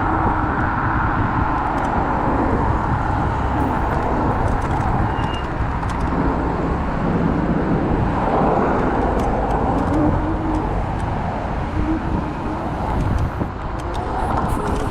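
Steady wind rumble and road noise on the camera microphone while riding a Kaabo Wolf Warrior electric scooter among city traffic.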